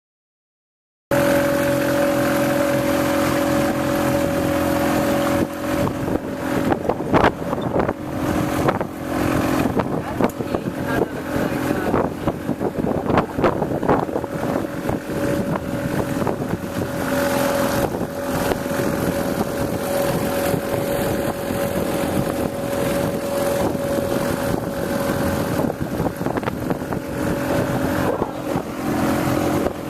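Motorboat engine running at a steady pitch, starting about a second in. From about five seconds in, wind buffets the microphone and irregular knocks come through over the engine.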